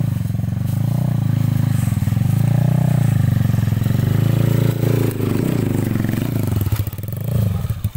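Kawasaki dirt bike's engine running and revving up and down as it labours up a steep dirt climb with a helper pushing, then cutting off abruptly near the end.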